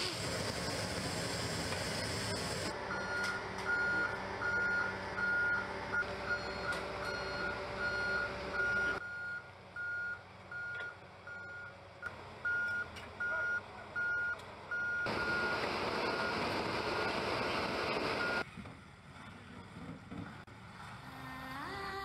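A vehicle's reversing alarm beeping at a steady pitch about twice a second over a rumble of engine noise. The beeping stops a few seconds before the end, and music fades in at the close.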